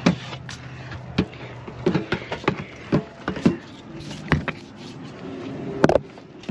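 Rummaging through a dumpster: irregular knocks, clatters and rustles as a plastic storage box, cardboard boxes and trash bags are shifted about, with one sharp knock near the end. A low steady hum runs underneath.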